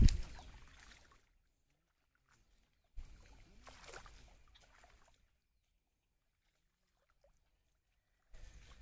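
Splashing in shallow muddy water: a loud splash at the start that fades over about a second, a smaller one about three seconds in, and another near the end.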